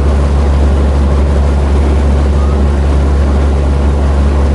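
Sailboat's engine droning steadily as the boat motors along: a constant low hum with an even hiss over it.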